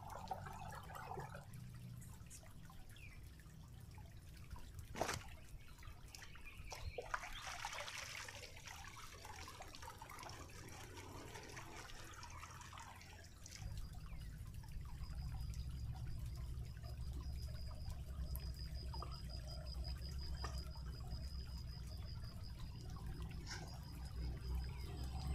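Creek water trickling and sloshing as something is washed by hand at the water's edge, with a sharp click about five seconds in. A faint, high, steady trill runs through the second half.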